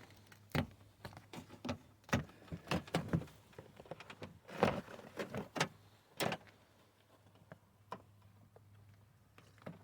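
Plastic door moisture-barrier sheet being peeled off its sticky tar-like adhesive, crinkling and crackling irregularly for about six seconds, then only a few faint ticks. A faint steady low hum runs underneath.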